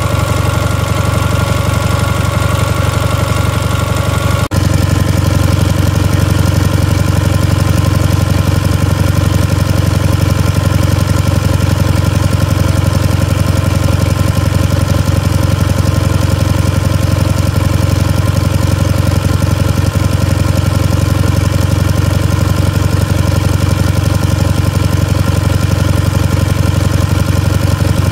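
A 1 hp Stuart Turner WD air-cooled flat-twin stationary engine running at a steady speed. The sound changes abruptly about four and a half seconds in, then carries on just as steady.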